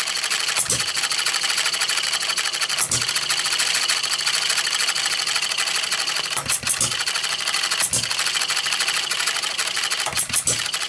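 Single-cylinder Farm Boy model engine running on denatured alcohol, with hall-sensor ignition: a fast, steady mechanical clatter from the spinning flywheels and moving parts, with a heavier thump every one to three seconds at uneven intervals.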